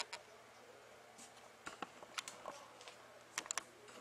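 Faint, scattered light clicks and taps in a quiet room, with a quick run of three clicks about three and a half seconds in.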